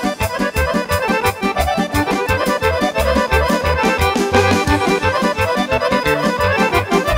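Two accordions playing a Vlach folk dance tune live, with a steady beat and a bass line under the melody.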